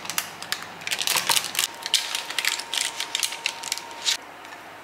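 Rapid run of sharp mechanical clicks from oven controls being turned and pressed, as the oven's fan keeps running after being switched off; the clicking stops about four seconds in.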